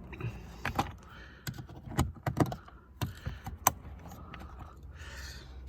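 Scattered sharp clicks and taps of small screws, a hand tool and plastic dashboard trim being handled, at an uneven pace.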